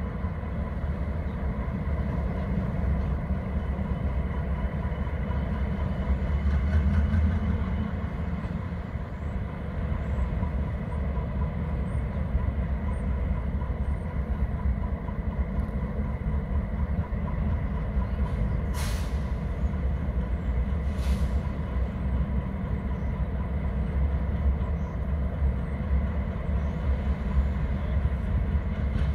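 Diesel locomotives running with a steady low rumble, and two short hisses of released air from the train's air brakes about two-thirds of the way through.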